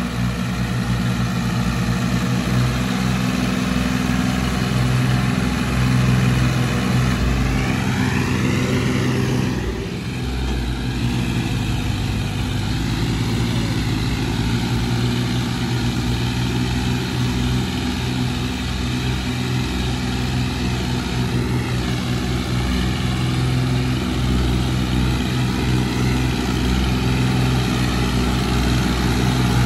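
Massey Ferguson 1035 tractor's diesel engine running steadily under heavy load. About eight seconds in, the pitch rises and falls briefly, and the level dips for a moment.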